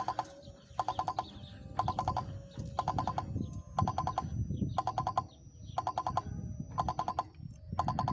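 Level-crossing warning bell ringing in short bursts of rapid strikes, about once a second, with a low rumble underneath that grows louder near the end.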